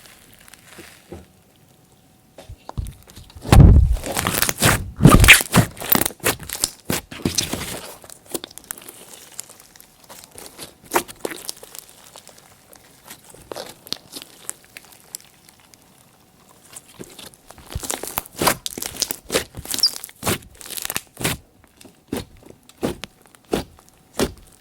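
Glossy slime being mixed and worked by hand, giving irregular sticky crackles, clicks and pops. They come thick about three to eight seconds in and again over the last seven seconds, and are sparse in between.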